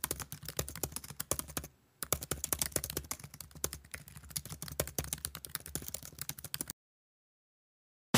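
Rapid computer-keyboard typing clicks, a quick run of keystrokes with a short break about a second and a half in, then more typing that stops shortly before the end.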